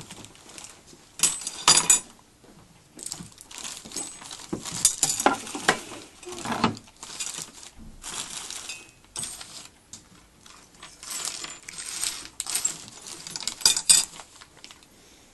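Small metal hardware being handled on a work surface, clinking and clattering in irregular bursts of short clicks.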